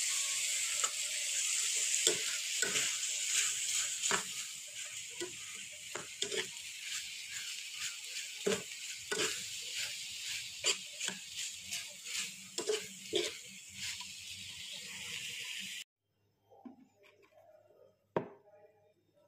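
Chicken innards, round eggplant and scallions sizzling in a pan while a spatula stirs and scrapes them, with frequent clicks of the spatula against the pan. The sizzling cuts off suddenly near the end, followed by faint clicks and a single knock.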